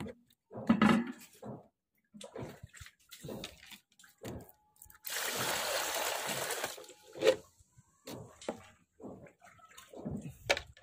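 Seawater poured from a container into a plastic basin: a steady splashing pour of about two seconds near the middle, with shorter irregular splashes and knocks around it.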